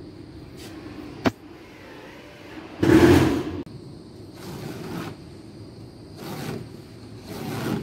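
Utility knife scoring a gypsum drywall sheet along a straightedge: several scraping strokes, each half a second to a second long, the loudest about three seconds in. A sharp click comes a little before it.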